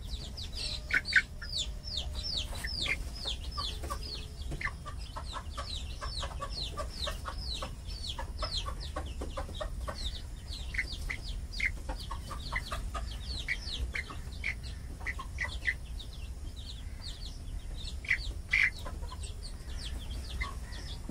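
Young chickens peeping: a steady stream of short, high, falling peeps, several a second, with some lower calls mixed in.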